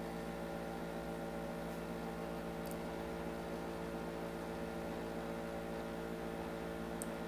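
Steady electrical hum with a light hiss: the background noise of the narration's recording setup, with two faint ticks partway through.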